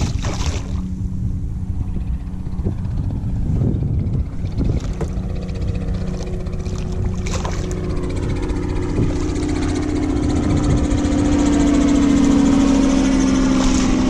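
A motorboat engine running, its steady tone growing louder from about halfway through as the boat comes closer, over a low rumble of wind and water. A splash of water at the very start.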